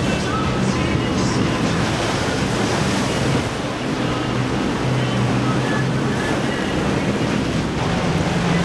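Waves and wind buffeting the microphone, with the steady low drone of boat engines running underneath.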